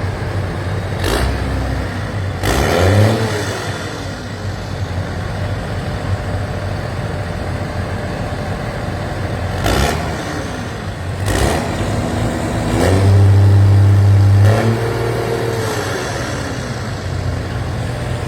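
Tractor engines running in slow, stop-start traffic. The engine pitch rises and falls several times as they rev, with one held, louder rev about two-thirds of the way in, and a few sharp clunks.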